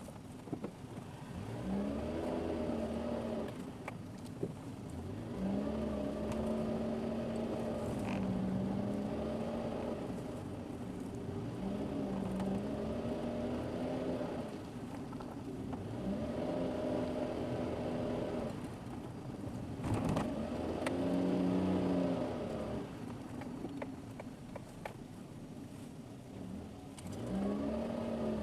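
Car engine heard from inside the car, repeatedly rising in pitch as it accelerates, holding, then dropping away as the throttle eases, about six times, over steady road and tyre noise. A single sharp knock about two-thirds of the way through.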